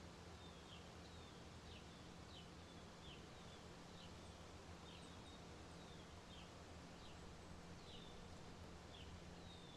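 Near silence: a steady low room hum, with a small bird chirping faintly in the background, short falling chirps about once a second.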